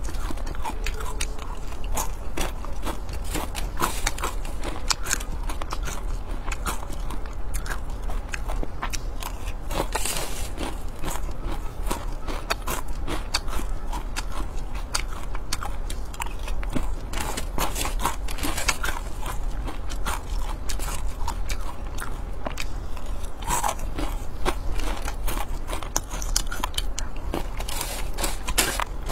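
Close-miked crunching and chewing of crispy fried grasshoppers: a dense run of sharp, crackling bites and chews that goes on without a break.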